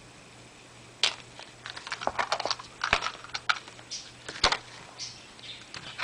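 Small objects being handled during an unboxing, probably packaging and earphone parts: an irregular run of sharp clicks and rattles starting about a second in.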